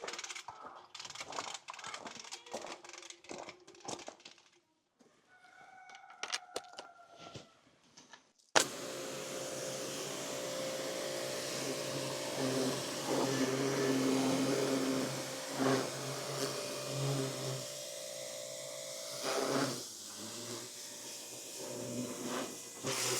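Scattered clicks and rattles of handling, then about eight seconds in an electric portable pressure washer switches on abruptly and runs steadily, its motor humming under the hiss of the water jet.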